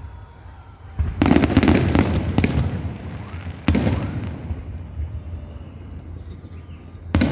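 Fireworks salute going off: a cluster of bangs and crackles about a second in, a single sharp bang a little before the middle, and another near the end, each trailing off in echo.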